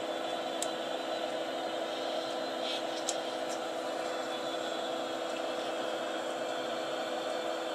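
High-voltage arc from a flyback transformer driven by a home-built class-D amplifier, giving off a steady hissing buzz with a few steady hum tones and a couple of faint ticks.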